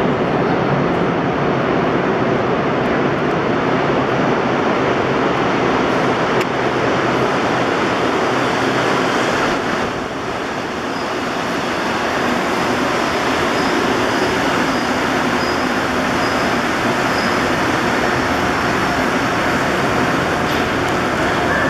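Rubber-tyred Montreal metro trains running into the station: a steady, loud rumble as one train pulls in and stops, easing off briefly about halfway, then building again as a second train comes in on the other track. A faint series of short high beeps sounds through the middle.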